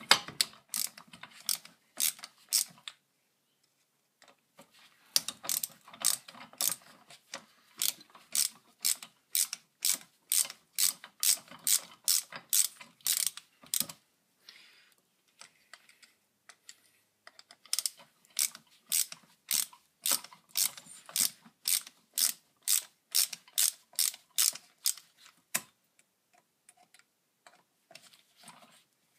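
Ratcheting screwdriver clicking in even runs of about two to three clicks a second as screws are backed out to take off a chainsaw's ignition coil. The clicking stops and restarts twice, with short pauses a few seconds in and about halfway through.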